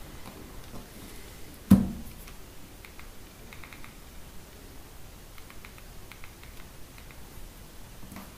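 Thumbs pressing the hardware QWERTY keys of a BlackBerry Bold 9000, a run of faint, quick key clicks, after a single loud knock a little under two seconds in.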